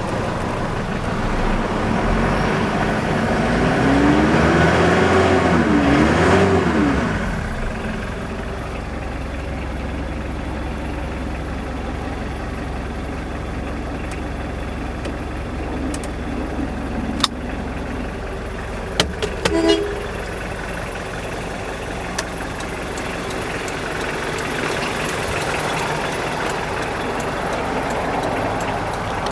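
The turbo-diesel engine of a 1989 Mitsubishi Pajero, heard from inside the cab, is revved up and back down twice a few seconds in, then settles to a steady idle. About two-thirds through there are a few sharp clicks and a short beep.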